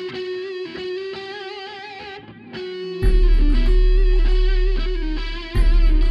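Background music led by an electric guitar playing sustained notes; about halfway through, a loud, deep bass part comes in and the music gets much louder.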